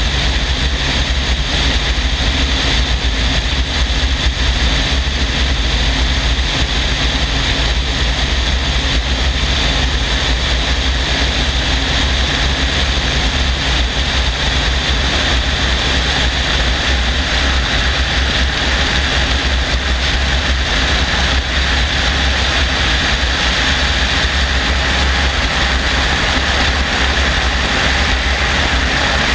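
Helicopter in steady cruising flight heard from a camera mounted on its outside: a continuous low rotor and engine drone mixed with a hiss of wind rushing over the microphone.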